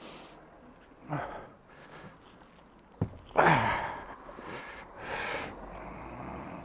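A sharp click about three seconds in, then a man's loud groaning exclamation that falls in pitch, followed by breathy huffs and sighs.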